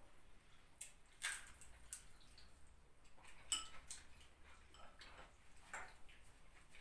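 Faint clinks and taps of cutlery on plates during a meal, a scattering of light separate knocks a second or so apart.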